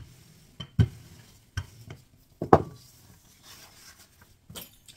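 Wooden rolling pin working dough on a wooden worktop: a few sharp knocks roughly a second apart, the loudest about halfway through.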